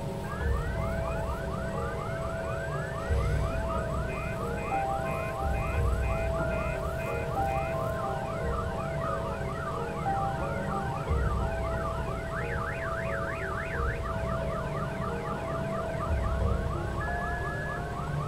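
Several sirens sounding together in a fast yelp, their rising sweeps overlapping and repeating several times a second, over a low rumble. A run of short high beeps sounds for a few seconds partway through.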